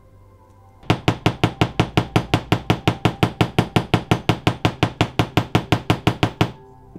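A small hammer taps rapidly on the end of a diecast toy car's axle resting on a watchmaker's anvil. The taps come in an even run of about five a second for roughly five and a half seconds, then stop. The hammering peens the axle end into a new mushroom head that holds the wheels on the baseplate.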